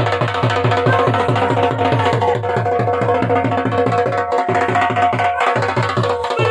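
Dhol drum beating a fast, even rhythm of about five strokes a second, with a baja playing a held, wavering melody over it.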